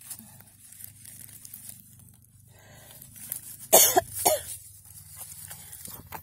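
A person coughs twice, about half a second apart, a little under four seconds in.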